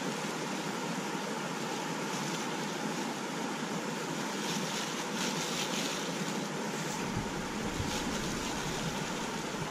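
Steady rushing of fast-flowing river water, with wind buffeting the microphone and adding a low rumble from about seven seconds in.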